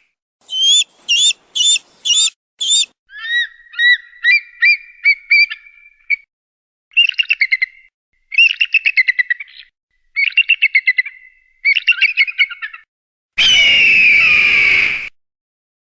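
Eagle calls: five sharp, high squeals, then runs of fast, chattering piping notes in several bursts, and near the end one long, harsh scream.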